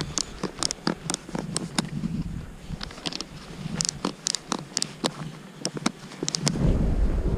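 Snowboard binding straps being ratcheted tight by a gloved hand: a run of sharp, irregular clicks. Near the end, a low wind rumble on the microphone rises.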